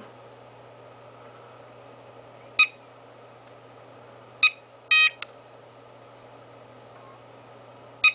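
Piezo beeper of an FMA Direct Cellpro 4s battery charger beeping as its button is pressed to step through the display screens: a short beep, another short beep, then a longer beep, and one more short beep near the end, each a high, steady pitched tone.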